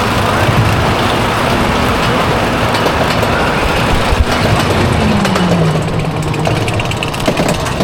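Steady loud rumble of roller coaster cars running along the track of a wild-mouse coaster, with a low tone that falls in pitch about five seconds in.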